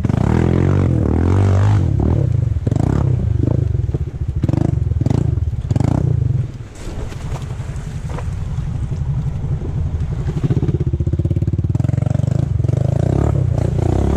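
ATV engine running under throttle as the quad wades through a muddy creek, with water splashing around it. The engine eases off briefly about six and a half seconds in, then pulls again.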